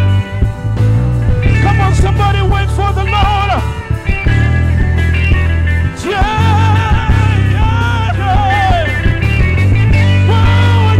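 Live gospel praise band playing: drum kit, bass guitar and electric guitar under a wavering, vibrato-laden lead melody.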